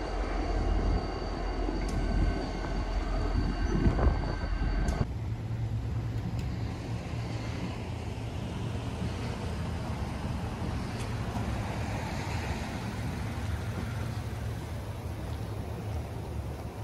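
A train running past with a low rumble and a few faint steady high tones, cut off abruptly about five seconds in. Then a pickup truck's engine runs at low speed with a steady low hum.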